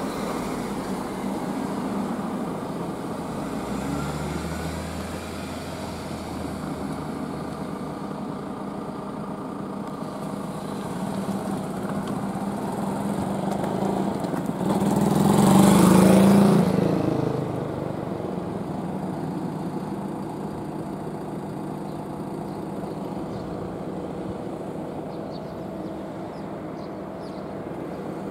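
A motor vehicle drives past about halfway through, rising to a peak and fading over a few seconds, over a steady low hum.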